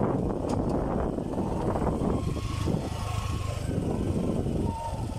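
Motorcycle running along the road at speed, its engine rumble mixed with wind and road noise on the microphone.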